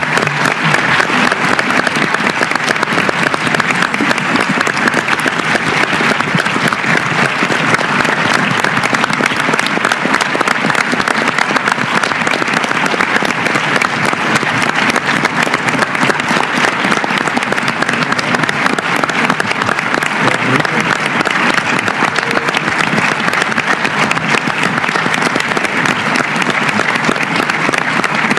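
Large audience applauding, a dense, even clatter of many hands clapping that swells up right at the start and then holds steady.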